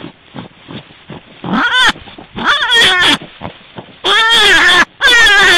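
Shiba Inu dogs vocalizing: a few soft grunts, then a string of howls that rise and fall in pitch, the last two long and loud.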